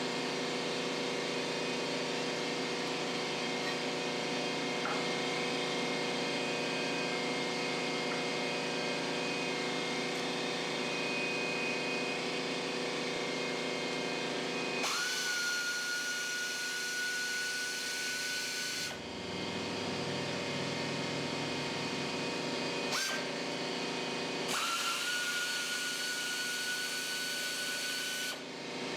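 A motor runs steadily for about fifteen seconds. Then a power tool runs twice with a steady high whine and hiss, about four seconds each time.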